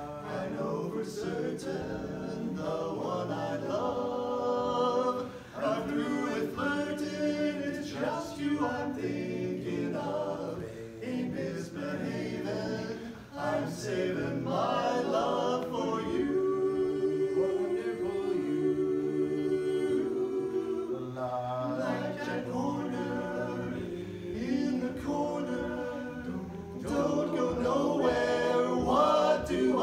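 Male barbershop quartet of four men singing a cappella in close four-part harmony, holding sustained chords that move from one to the next, with two short breaks about five and thirteen seconds in.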